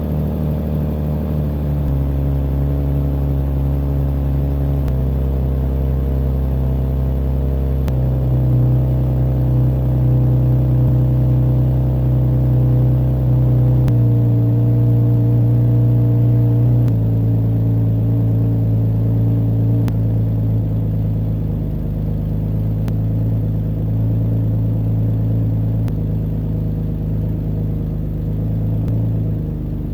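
Car engine with Bosch Jetronic fuel injection running in the minutes after a cold start, its idle pitch stepping up and down every few seconds.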